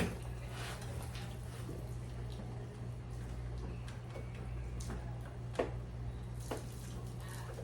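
Scattered light clicks and taps, the strongest about five and a half seconds in, over a steady low hum.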